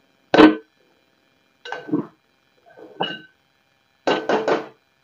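Metal spoon clanking and scraping against a metal cooking pot while stirring liver fry: four separate ringing knocks about a second apart, the last a quick run of three strokes.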